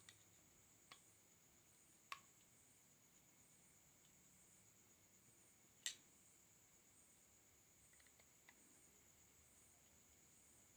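Near silence, with a few faint, sharp clicks scattered through it as a part is pressed into place in a Wismec R80 vape mod's casing.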